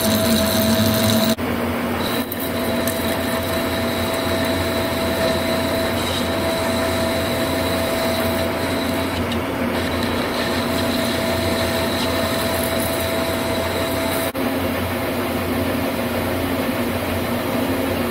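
Metal lathe running under a turning cut, a steady machine hum with a faint whine as the tool takes metal off the spinning workpiece. The sound jumps abruptly twice, about a second and a half in and near the end.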